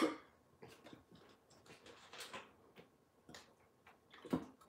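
Faint, scattered clicks and light taps, about eight of them a half second to a second apart, the loudest a sharper knock near the end. The tail of a cough fades out at the very start.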